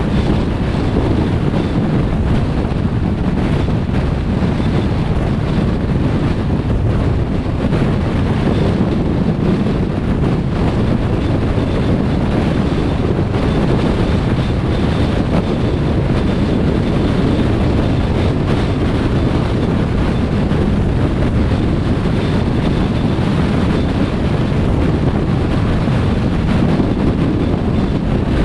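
Steady rumble of tyre and wind noise from a car driving, with a faint high whine held at one pitch.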